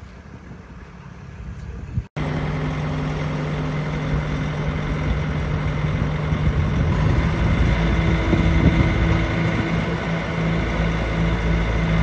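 Bobcat T590 compact track loader's diesel engine running steadily at idle, starting abruptly about two seconds in after a short stretch of wind noise.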